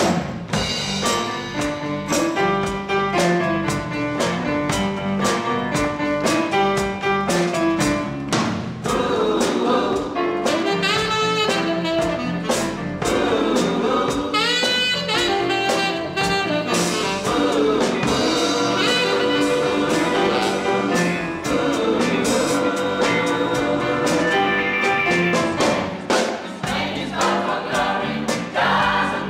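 Live band playing an upbeat gospel song on drum kit, keyboards and guitar, with a steady drum beat and some singing over it.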